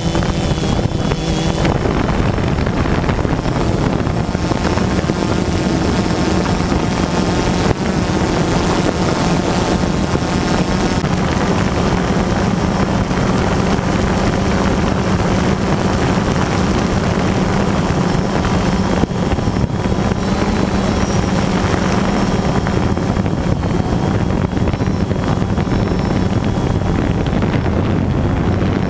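Quadcopter drone's motors and propellers humming steadily, mixed with wind on the microphone.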